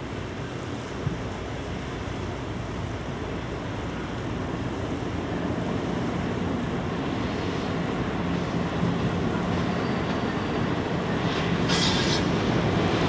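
Diesel freight locomotives of a coal train approaching, their steady engine drone and rumble growing louder, with wind noise on the microphone. A brief high-pitched sound rises above it near the end.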